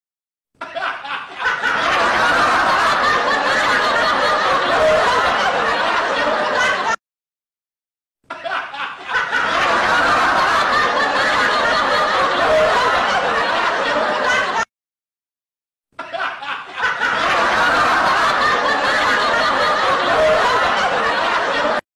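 A short clip of laughter, about six seconds long, repeated three times in a loop, each repeat cut off by about a second of dead silence.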